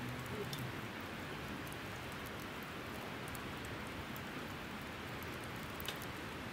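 Glowing campfire embers burning with a steady soft hiss and a few faint ticks.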